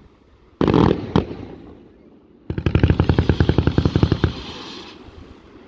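Fireworks display: a single loud bang about half a second in, then a rapid string of sharp cracks, well over ten a second, for nearly two seconds before dying away.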